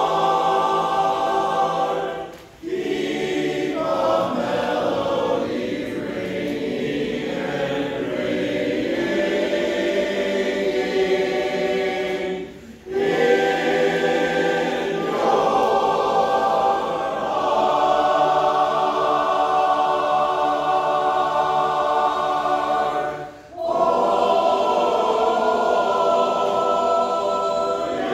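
Barbershop chorus singing a cappella in close harmony, holding long chords, with three short pauses for breath between phrases.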